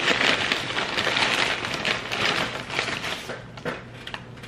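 Brown paper takeout bags crinkling and rustling as they are handled and set down on a counter, a dense crackling that thins out near the end.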